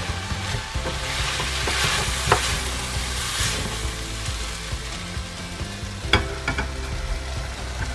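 Chopped onions sizzling in a stainless steel pot while being stirred with a wooden spoon, with a sharp scrape or knock a couple of seconds in. About six seconds in, a few quick clicks and knocks as browned beef cubes and their juices are tipped in from a bowl.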